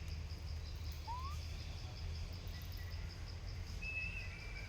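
Outdoor ambience: an insect chirps in a high, even pulse about five times a second over a low rumble. A short rising whistled call comes about a second in, and a thin held whistle starts near the end.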